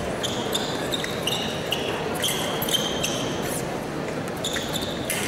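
Fencers' shoes squeaking on the piste during footwork, a string of short high squeaks at irregular intervals over the steady noise of a large hall.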